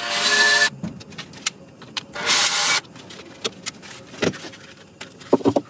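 Cordless drill-driver whirring in two short bursts about two seconds apart, backing out the screws that hold the actuator onto a coolant valve. Light clicks and knocks of handling the part follow near the end.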